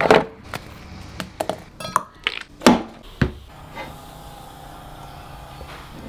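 A handful of sharp clicks and knocks of small objects being handled, then a faint steady hum from about four seconds in.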